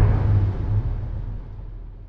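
Deep rumble of a cannon shot dying away steadily.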